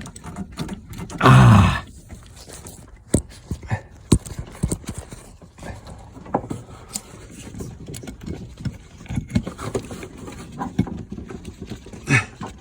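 Irregular clicks and knocks of a heater hose and its quick-connect fitting being handled and pushed together, with one loud thump about a second in.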